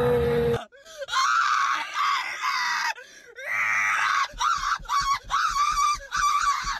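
A young man screaming: a short low groan at the start, then a long high, wavering scream of about two seconds, then a run of shorter screams with brief breaks between them.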